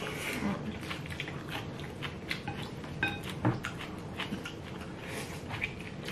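Close-up eating sounds of dumplings: wet chewing, lip smacks and small sharp clicks throughout, with a brief ringing clink about three seconds in.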